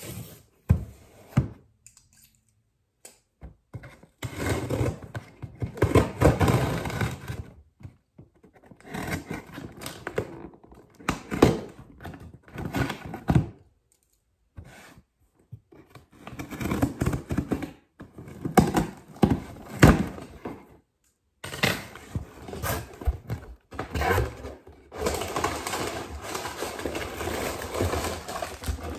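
A cardboard shipping box being handled and opened: thunks, scraping and tearing of cardboard, in several bursts separated by short silences.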